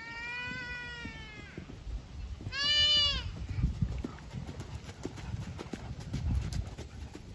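Two drawn-out, high-pitched bleat-like calls: a long one that falls away about a second and a half in, then a louder, shorter one around three seconds in. Under them, from about two seconds in, the uneven thuds of a horse's hooves cantering on sand.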